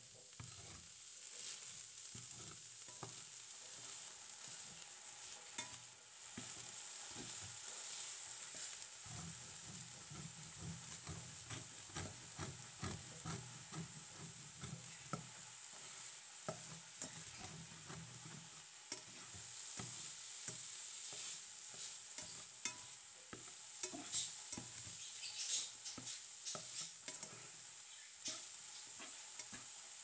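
Food sizzling in a stainless steel pan while a slotted spatula stirs and scrapes through it, with many small clicks and taps of the spatula against the pan.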